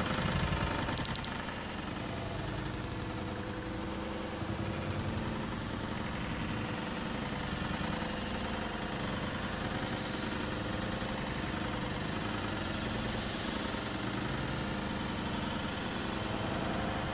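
Steady drone of motor traffic engines running, with a quick cluster of three clicks about a second in.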